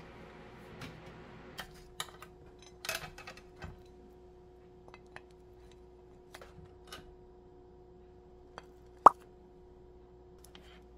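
A wooden spatula scraping and tapping against a metal baking tray and a ceramic plate as baked breads are pried loose and moved, giving scattered clicks and scrapes, with one sharp knock about nine seconds in. The breads are sticking to the tray, whose non-stick coating is poor.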